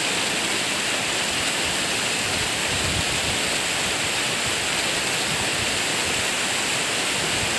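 Steady rushing of a rain-triggered volcanic lahar flood, fast muddy water pouring down the riverbed.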